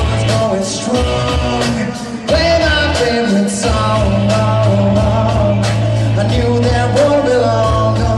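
Rock and roll song playing: a voice singing a melody over bass, guitar and a steady drum beat.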